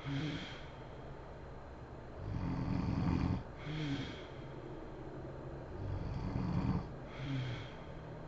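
A woman snoring in her sleep: two low, rattling snores about three and a half seconds apart, each followed by a short breathy exhale.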